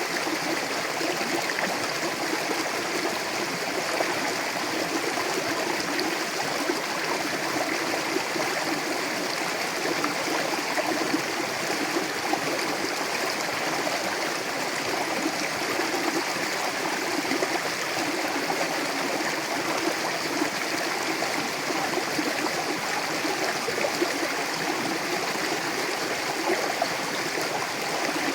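Mountain river rushing and gurgling over rocks, a steady even flow with no breaks.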